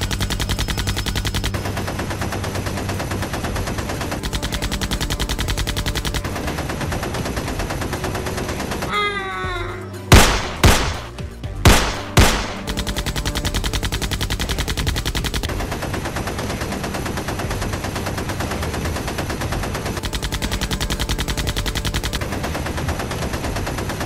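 Dubbed-in automatic gunfire sound effect, rapid and continuous, with several much louder bangs about ten seconds in.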